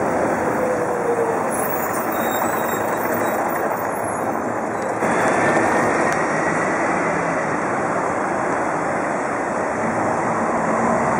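Steady city street and traffic noise around a vintage tram moving slowly on a curve; the noise steps up abruptly about five seconds in.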